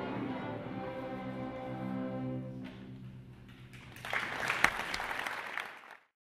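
School string orchestra holding a final sustained chord that fades away about three seconds in. Audience applause starts about a second later and cuts off abruptly near the end.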